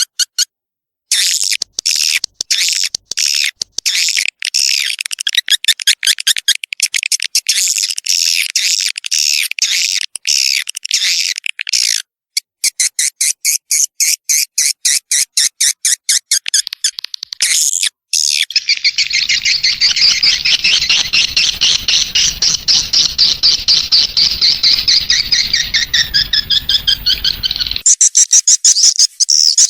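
Swiftlet lure recording: rapid, repeated high chirps and twitters of swiftlets, made to draw young swiftlets into a nest building. About two-thirds of the way in, the chirping turns into a dense, continuous twittering over a low rumble for several seconds, then the quick separate chirps return.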